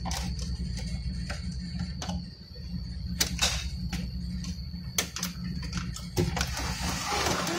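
Scattered clicks and knocks of hands handling the plastic parts and casing of an opened inkjet printer, with a stretch of rustling and scraping near the end, over a steady low hum.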